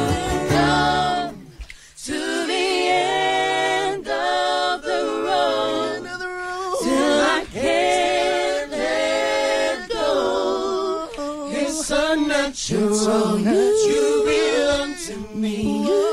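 Mixed male and female vocal group singing an R&B song in close a cappella harmony, with vibrato on held notes. The instrumental backing stops about a second and a half in, leaving the voices alone.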